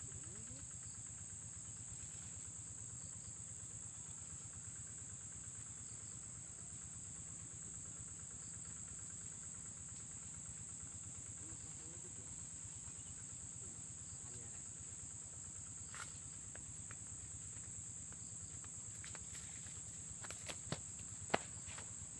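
Insects droning steadily at one high pitch, with a few sharp clicks near the end.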